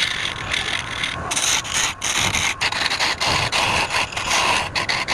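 A tool or abrasive scraping against wood spinning on a woodturning lathe: a loud, rough hiss that keeps cutting out briefly as contact breaks and resumes.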